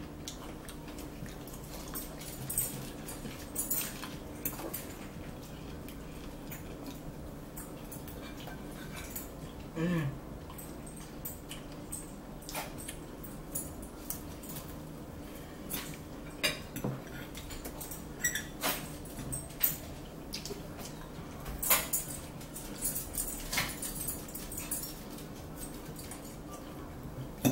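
Forks clicking and scraping against plates as two people eat, in scattered sharp ticks, over a low steady hum. About ten seconds in there is a brief whining sound.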